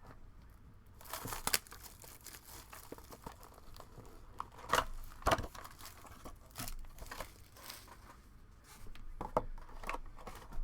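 Wrapping crinkling and tearing as a sealed trading-card box is opened, with a few sharper snaps and crackles, the loudest about five seconds in.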